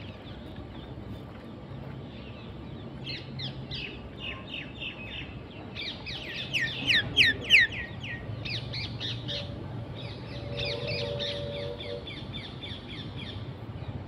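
Wild birds calling in a chorus: rapid runs of sharp, high, downward-sweeping chirps and squawks that begin about three seconds in and are loudest around the middle.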